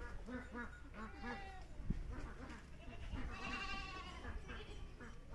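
Farm animals calling: a run of short calls and one longer, wavering high call about three seconds in.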